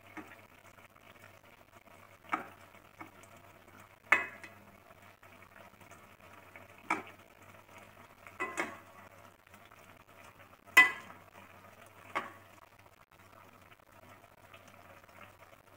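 A plastic ladle stirring chunks of cassava and sardine curry in a pot, knocking against the pot's rim and sides a handful of times, loudest about four and eleven seconds in, over a steady simmering hiss.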